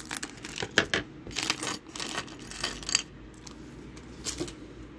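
Small hard plastic minifigure pieces dropping and clattering onto a table: a quick run of sharp clicks over the first three seconds, then one more a little after four seconds in.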